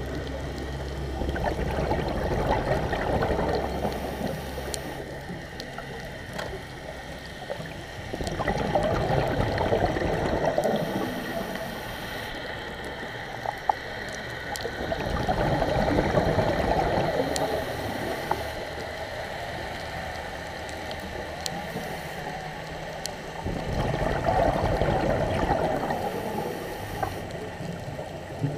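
Scuba diver breathing through a regulator, heard underwater: four slow breaths, each exhalation a gurgling rush of bubbles lasting a few seconds, with a short hiss of inhalation between them.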